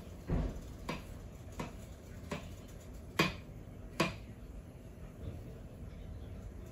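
Chef's knife slicing through chicken of the woods mushroom and knocking on the cutting board: a series of short chopping knocks about every two-thirds of a second, the loudest two about three and four seconds in.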